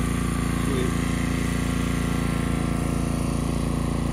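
An engine running steadily at a constant speed, an even low drone with no change in pitch.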